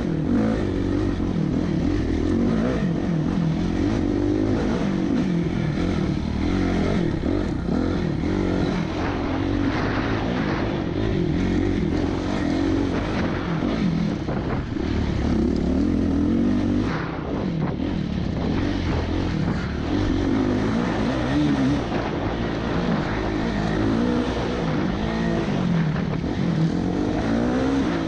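Dirt bike engine heard from the rider's seat, revving up and falling back over and over as the rider accelerates and shifts along a trail.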